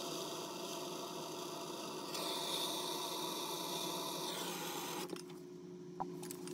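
Handheld soldering torch burning with a steady hiss, shut off about four and a half seconds in; after that a faint hum remains and a single click sounds near the end.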